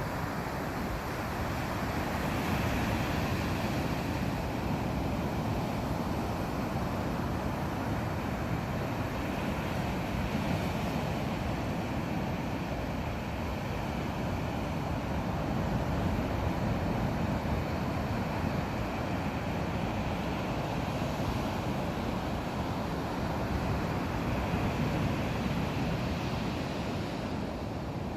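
Sea surf breaking steadily on a beach: a continuous, even wash of waves with no separate strokes.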